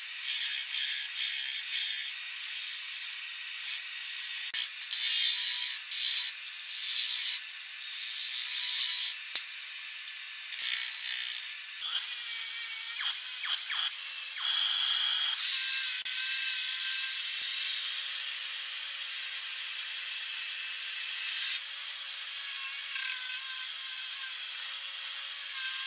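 Turning gouge cutting a spinning wooden blank on a wood lathe in short, irregular hissing passes with brief gaps. About twelve seconds in it gives way to a handheld rotary sanding disc sanding the turning wood with a steady whirring hiss.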